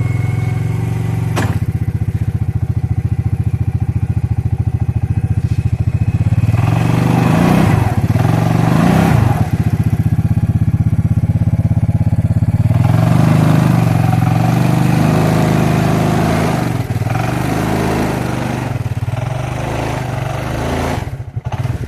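Suzuki King Quad ATV's single-cylinder engine running, with a sharp click about a second in and a few stretches where the engine gets louder and rougher, as if revved or put under load.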